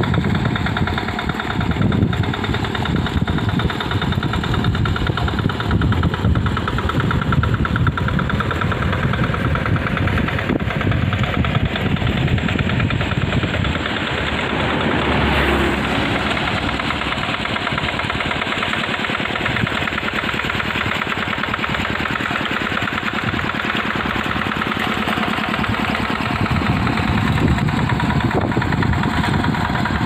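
Two-wheel hand tractor's single-cylinder engine running steadily under load while plowing a flooded rice paddy, growing louder near the end as it comes close.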